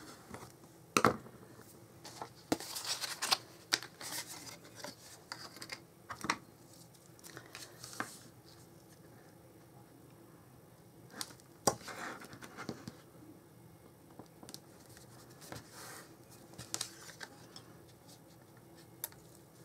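Cardstock and paper being handled and pressed into place: quiet, intermittent rustling and scraping with scattered light taps and clicks.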